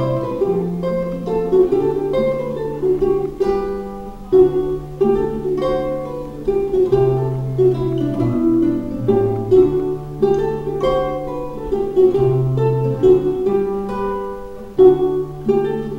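Ukulele and nylon-string classical guitar playing a mazurka as a duet, quick plucked melody notes over low bass notes.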